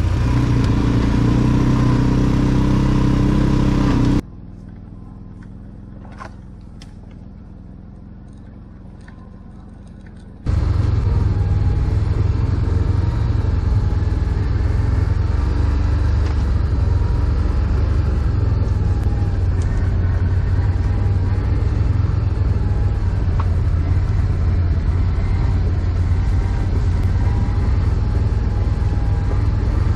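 ATV engine running steadily under way, a loud low drone. About four seconds in it drops suddenly to a much quieter level with a few faint clicks, and about six seconds later the full engine drone comes back just as suddenly.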